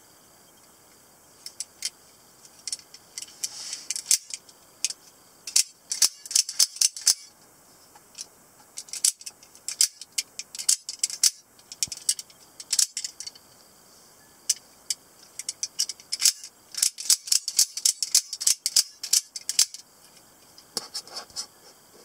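Double-edged out-the-front automatic knife firing and retracting its blade again and again: sharp metallic snaps in quick runs, with short pauses between the runs.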